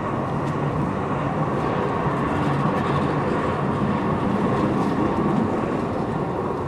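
Siemens Duewag U2a light rail car running past close by along the platform: a steady rumble of wheels on rail and traction motors with a constant whine, swelling slightly and easing off near the end.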